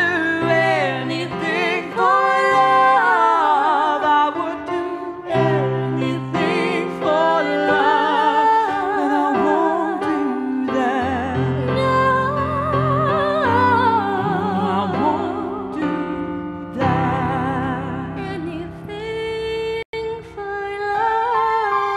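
Music: a sung melody with a wide vibrato over sustained backing chords, with a split-second cut-out near the end.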